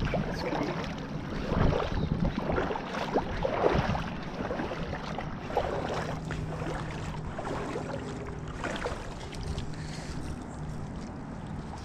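Wind buffeting the microphone in gusts, with scattered knocks and rustles. A faint steady low hum sits under it in the second half.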